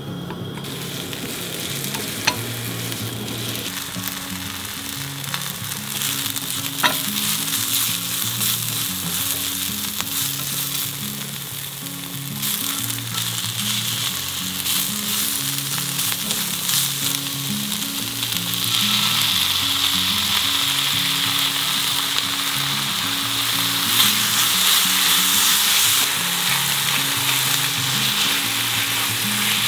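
Sliced onions and shredded chicken sizzling in oil in a frying pan, being stirred with a spatula. The sizzle gets louder in steps, near the middle and again about two-thirds through. Two sharp clicks come in the first few seconds.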